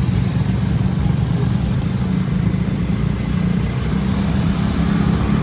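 Busy road traffic, mostly motorcycle engines running close by, heard from a bicycle riding in the flow. It is a steady, loud low rumble with no distinct single event.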